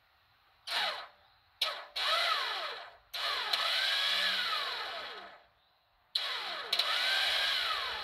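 Starter motor of a 1994 Dodge Ram 3500's 12-valve Cummins diesel whining through about five key turns, each a spin-up whose pitch rises and then falls away. The engine does not crank or catch: the starter is failing.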